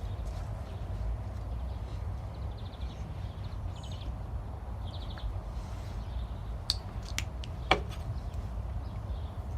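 Cornstarch and dish soap being stirred together for slime, with a few light clicks and taps near the end over a steady low hum.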